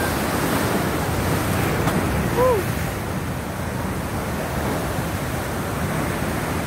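Sea surf breaking and rushing over rocks: a steady churning wash of white water. A short rising-then-falling call sounds once, about two and a half seconds in.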